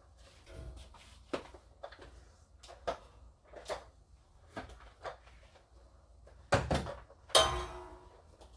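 Light knocks and bumps of household cleaning, then two louder bangs near the end, the second followed by a short rattling ring.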